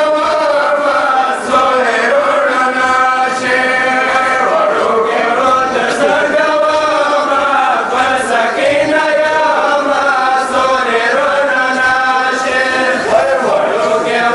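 A group of men chanting a nauha, a Shia mourning lament, together into a microphone in long, wavering melodic lines.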